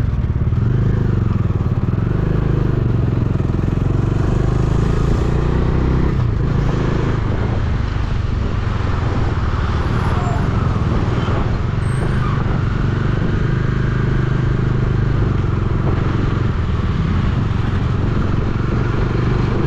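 Motorcycle engine running steadily while riding along the road, with a low hum and road noise.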